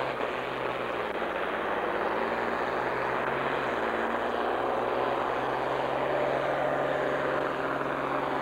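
Farm tractor's diesel engine running at full throttle under heavy load as it drags a weight-transfer pulling sled, a loud, steady drone with no let-up in pitch.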